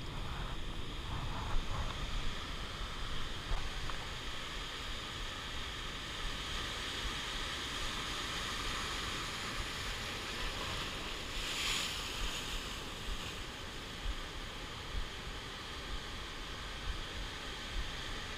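Ocean surf breaking and washing over rocks, a steady rushing wash that swells into a louder wave crash about twelve seconds in, with wind rumbling on the microphone.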